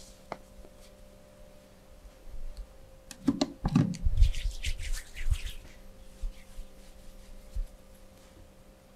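Hands rubbing and scratching over skin during a massage, with a cluster of soft thumps about three seconds in and a run of scratchy strokes after it.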